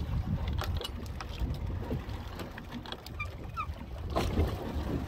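Steady low rumble of a fishing boat at sea, with wind on the microphone and scattered small clicks.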